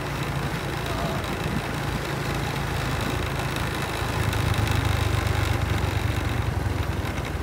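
Motorcycle engine running while riding, a steady low hum under a rush of wind and road noise; it grows louder for a couple of seconds about halfway through.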